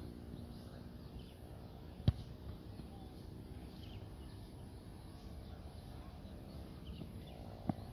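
Quiet open-field ambience with faint bird chirps, broken by a sharp thud of a football being kicked about two seconds in and a second, smaller kick near the end.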